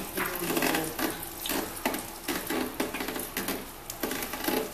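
Hot oil in an electric deep fryer sizzling and crackling in irregular bursts.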